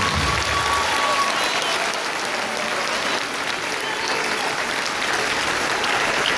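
An audience applauding steadily, with the last note of the music dying away in the first second.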